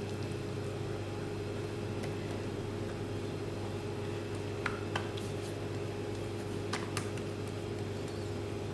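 Steady low machine hum, such as a kitchen appliance or fan running, with a few faint soft ticks from hands pressing and spreading dough on a marble board.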